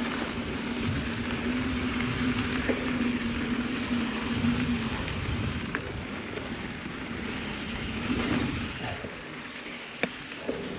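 Mountain bike riding on a dirt trail: tyres crunching over the ground and wind on the microphone. A steady low hum runs through the first half, and there are a couple of sharp clicks near the end.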